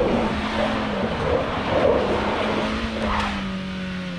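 Hyundai Santa Cruz pickup's turbocharged engine held at high revs while the tyres scrabble and throw loose dirt. Near the end the revs drop and the engine note falls.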